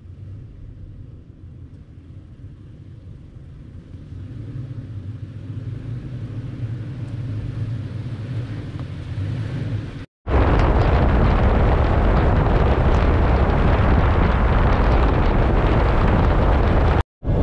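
Toyota Tacoma pickup approaching slowly on a dirt trail, its low engine and tyre rumble growing steadily louder. About ten seconds in, this cuts to a loud, steady rush of wind and road noise from the moving truck.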